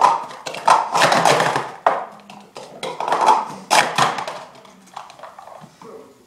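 Plastic sport-stacking cups clattering in a rapid run of clacks as they are stacked up into pyramids and swept back down into stacks. The clacking thins out over the last second or two.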